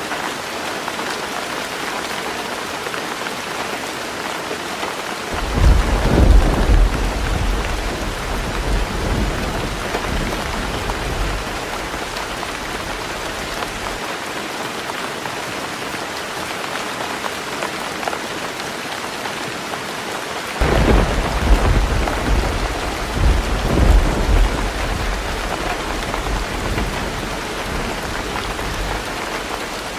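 Heavy rain pouring steadily on a roof, with two rolls of thunder: the first breaks about five seconds in and the second about twenty seconds in, each rumbling for several seconds with a couple of louder peaks before fading back under the rain.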